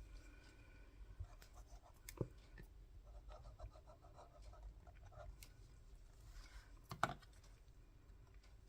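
Quiet paper handling: faint rustling and scratching of paper pieces being moved and pressed, with a sharper tap about two seconds in and a louder one about seven seconds in.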